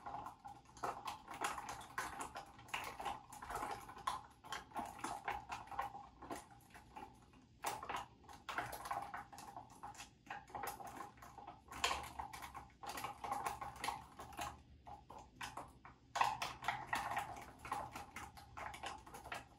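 Wooden chopstick stirring glue-and-borax slime in a cut-off plastic bottle: a rapid, irregular clicking and tapping of the stick against the plastic, with a few short pauses, as the mixture thickens.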